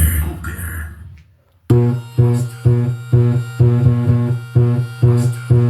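Music playing loud through a Fiat Strada's car sound system: one track fades out about a second in, and after a short gap a new one starts with a repeated plucked, bass-heavy note about twice a second.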